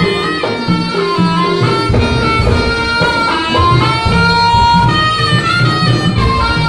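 Live music for a barong dance: a loud, reedy wind instrument plays a sustained melody over drums and percussion.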